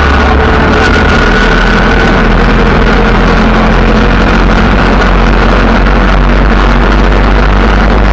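A vehicle driving along a road: steady engine and road noise with a heavy low rumble.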